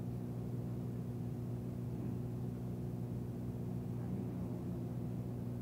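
Steady low hum with several evenly spaced tones, under tape hiss, from a slow-speed 1962 reel-to-reel field recording in a pause between voices.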